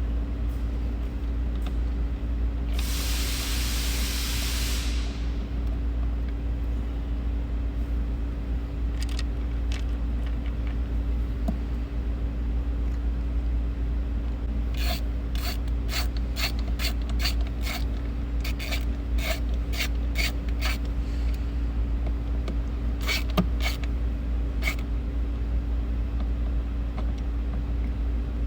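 A ratcheting screwdriver clicking in quick irregular runs, about fifteen sharp clicks in the middle and a few more later, as it drives the T20 Torx screws of the Jeep Wrangler JKU rear sound bar speaker. A steady low hum runs underneath, and a brief rushing hiss sounds about three seconds in.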